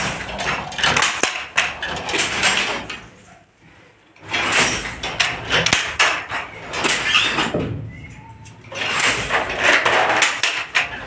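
Wooden fly-shuttle handloom at work: rapid clattering and knocking of the shuttle being thrown and the batten beating up. It comes in three bursts with two short pauses between them.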